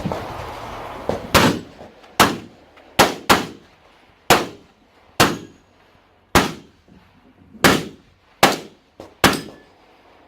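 Handgun shots fired one at a time, about ten sharp reports roughly a second apart with one quick pair near the three-second mark, each with a short echoing tail.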